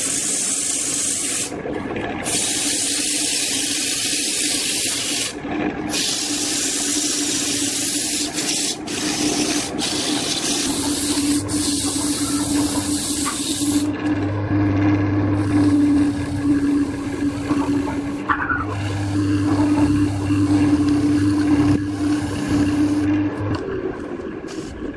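Wood lathe running with a steady motor hum while sandpaper pressed against the spinning wooden bowl hisses. The sanding hiss thins out about halfway through, and the hum stops shortly before the end.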